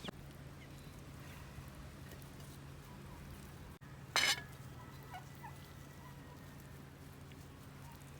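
Farmyard poultry calling: one short, loud call about four seconds in, over a steady low hum.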